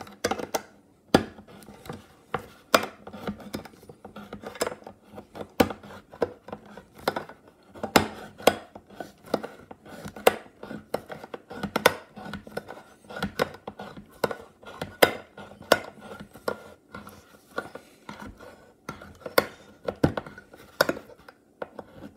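Hand-held steel lever-type can opener cutting around the lid of a tin can: repeated rocking strokes, each a sharp metallic crunch of the blade biting through the tin, roughly one to two a second with faint scraping between.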